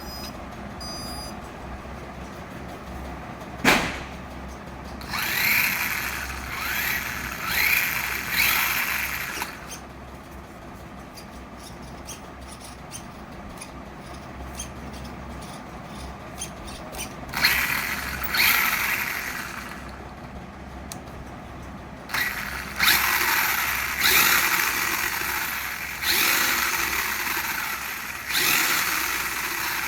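Small electric motor of a remote-control toy whirring in repeated bursts, each rising in pitch as it speeds up, with a sharp click a few seconds in.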